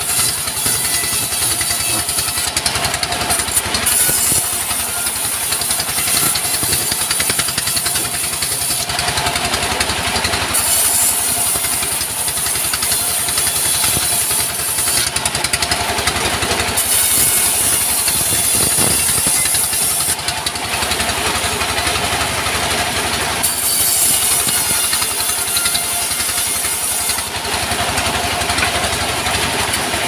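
Diesel engine running steadily, driving a bandsaw as it rips boards from a log. The blade's high hiss comes with each cut and drops away briefly between passes, about every five to seven seconds.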